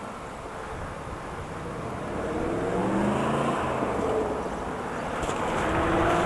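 Car driving with steady road noise; about two seconds in, the engine note rises and grows louder as the car accelerates.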